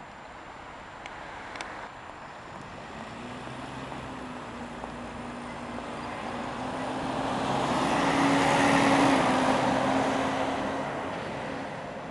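Ikarus articulated diesel bus approaching and passing close by, its engine note and road noise swelling to a peak about nine seconds in, then easing off as it pulls away.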